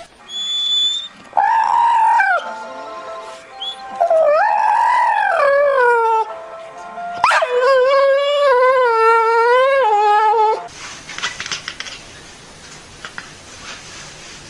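Puppy howling: three drawn-out howls, the last and longest one wavering up and down in pitch for about three seconds.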